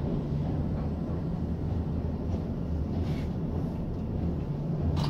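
1995 KONE inclined traction elevator car travelling, a steady low rumble and hum heard inside the car. A sharp click comes near the end.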